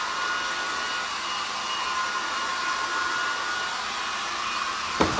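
Steady airy hiss of a small electric appliance motor with a faint steady whine, and two short clicks near the end.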